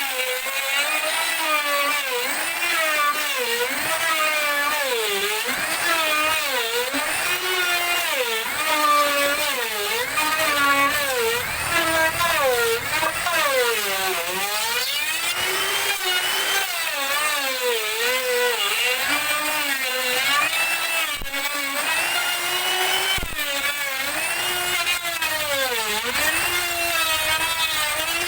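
Handheld electric woodworking power tool running continuously, its motor pitch dipping and recovering over and over as it bites into the wood under load.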